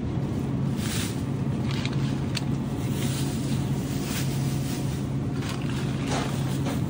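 Steady low mechanical hum, like shop refrigeration or ventilation, with a few short crinkles of a thin plastic produce bag as green chillies are dropped into it.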